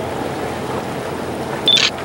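Steady engine noise of boats manoeuvring a ship alongside a dock. Near the end comes one short, sharp, high-pitched chirp, louder than the rest.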